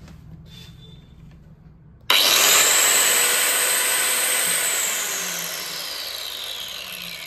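Xtra Power XPT 449 4-inch electric circular saw switched on about two seconds in and spinning free with no load, a loud high whine. After a couple of seconds it is let go and winds down, the whine falling steadily in pitch and fading.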